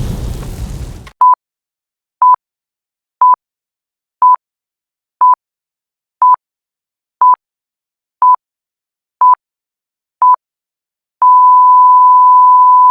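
The tail of an explosion sound effect fades out, then an electronic countdown beeper sounds ten short beeps one second apart and a long steady beep at the same pitch for zero.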